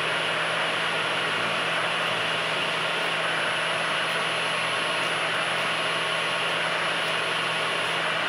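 Machine spindle running steadily with a #23 drill bit cutting a hole into a metal rod held in a vise: an even whir with a low hum underneath.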